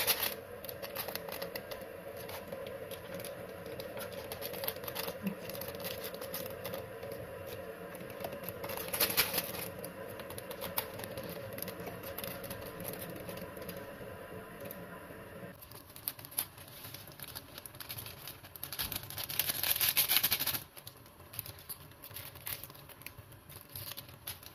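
Plastic sauce sachets crinkling as they are handled, with two louder rustling bursts, one about nine seconds in and a longer one around twenty seconds, over a steady low hum that stops about two-thirds of the way through.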